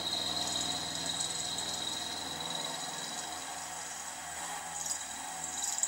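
Small milling machine running with an end mill cutting a slot into a round metal bar: a steady motor hum under a high whine and the grinding rasp of the cut. The cut grows harsher and hissier near the end.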